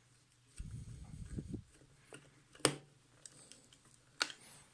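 Screwdriver tightening a wire into the screw terminal of a Sonoff RF Wi-Fi switch module: soft handling rustle, then a few sharp clicks, the two loudest about two and a half and four seconds in.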